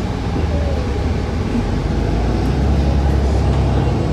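Cabin noise aboard a New Flyer Xcelsior XDE40 diesel-electric hybrid bus: a steady low drone from the drivetrain and road, growing a little louder about two and a half seconds in.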